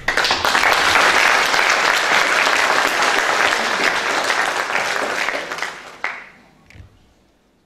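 Audience applauding, many hands clapping at once, fading away about six seconds in.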